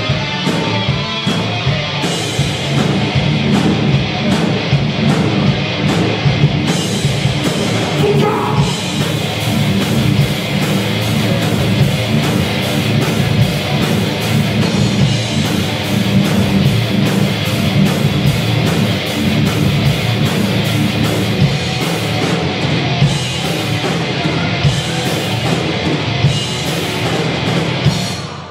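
Heavy metal band playing live: electric guitars, bass and drums, with a steady drum beat throughout. The sound dips briefly at the very end.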